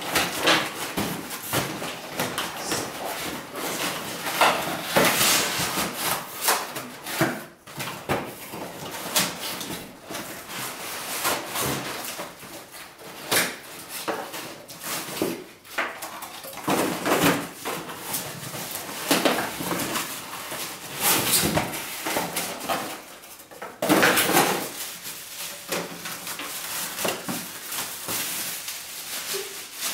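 Cardboard packaging and plastic wrapping rustling, crinkling and scraping as packed food-processor parts are pulled out of their box, with many short sharp crackles.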